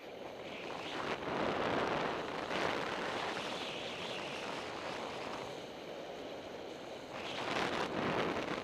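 Edges carving downhill turns on packed snow: a hissing scrape that swells about a second in and again near the end, with wind rushing over the microphone.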